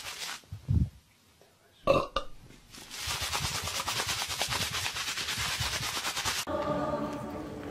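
A person burping loudly about two seconds in, after a shorter low sound just before a near-silent pause. A few seconds of dense, harsh crackling noise follow, and music comes in near the end.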